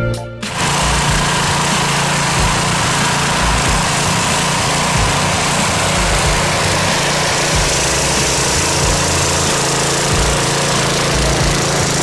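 A small engine running steadily at an even speed, with no revving, starting about half a second in.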